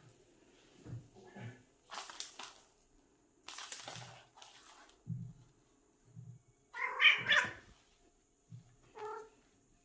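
A house cat making strange calls while hunting: breathy, hissing bursts early on, then a short wavering meow-like cry about seven seconds in and a shorter one about nine seconds in.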